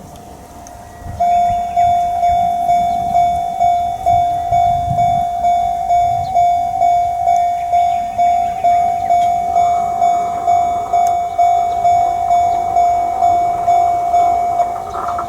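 Railway level-crossing alarm starts about a second in and rings a steady electronic tone in even pulses, about two and a half a second. It signals an approaching train. From about ten seconds in, a rising hiss of the oncoming train joins it.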